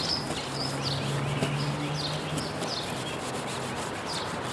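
A lemon half coated in baking soda rubbed back and forth over a cloudy plastic headlight lens, making a steady scrubbing sound. Small birds chirp repeatedly in the background.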